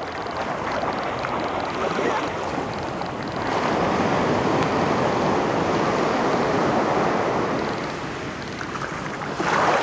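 Small waves washing onto a sandy beach: a steady rushing noise that swells between about three and a half and eight seconds in, then eases off.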